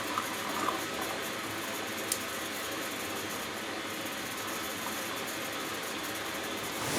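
Hoover Dynamic Next DXA610IW3 washing machine running in the first minute of a cotton wash cycle: a steady rushing noise with a single click about two seconds in.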